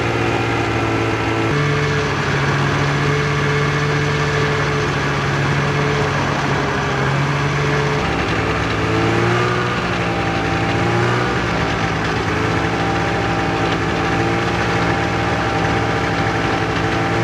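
Snowmobile engine running steadily while riding. Its note steps up about a second and a half in and wavers up and down around the middle.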